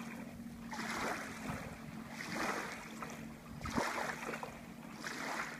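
Wave runner engine idling as a low steady hum, with irregular washes of sloshing water over it.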